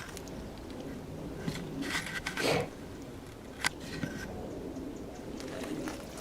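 Light clicks and a short scrape of a steel band saw blade and saw parts being handled, as the blade is pushed down onto the wheels and into the guide rollers. The loudest moment is a brief scrape about two and a half seconds in, followed by one sharp click a second later.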